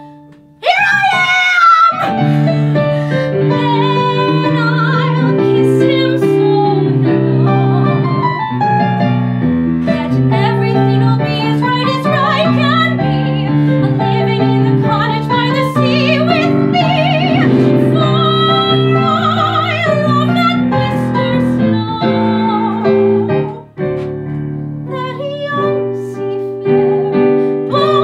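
A woman singing a musical-theatre song with vibrato, accompanied by piano. The voice comes in about half a second in, after a brief gap.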